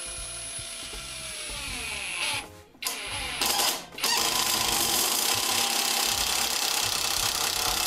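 Drillpro cordless impact wrench driving a long wood screw into a timber block through a bit adapter, set to its lower 'Full' mode. At first the motor whines and its pitch drops as the load builds. After two short pauses, from about four seconds in, the impact mechanism hammers steadily until it stops, sinking the screw without trouble.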